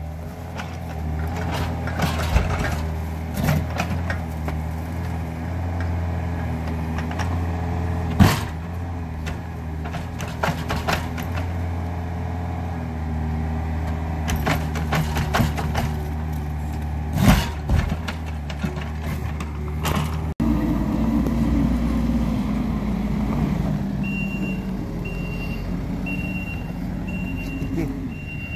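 Excavator's diesel engine running steadily while the bucket knocks and scrapes against a concrete septic tank, with loud clanks about 8 and 17 seconds in. Past the middle the engine note changes and a backup alarm starts beeping about once a second.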